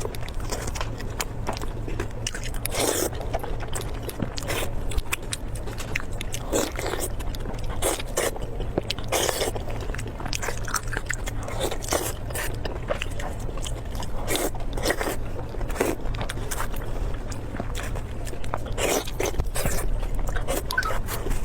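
Close-miked eating of a shawarma wrap: irregular bites, crunches and wet chewing clicks, over a steady low hum.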